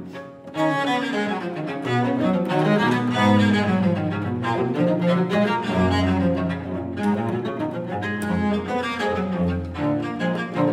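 Two cellos bowed together in a fast classical duet, quick running notes over lower held notes. A short break in the playing at the start, then it picks up again about half a second in.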